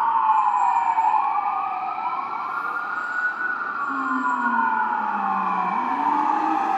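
Fire engine's Whelen 295 electronic sirens sounding a slow wail, the pitch falling, rising and falling again, with a second siren slightly out of step. About four seconds in, a deep Whelen Howler tone joins, dipping and then climbing, as the engine drives away.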